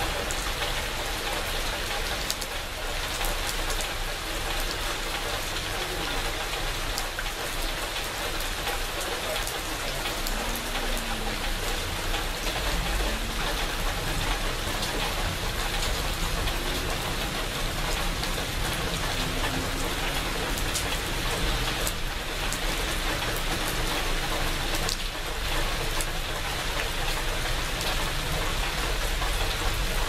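Steady rain falling on the leaves of dense bushes: an even wash of rain noise with individual drops ticking sharply through it.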